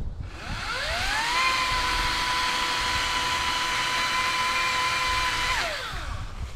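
Ryobi 40V brushless electric chainsaw spinning up to full speed with a rising whine, running steadily at a constant pitch for about four seconds, then winding down near the end.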